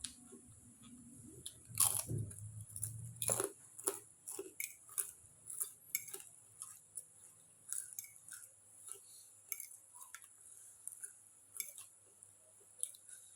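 Close-up eating sounds: crunchy fried crackers being bitten and chewed, a quick irregular series of sharp crunches, the loudest about two seconds in and near the four-second mark.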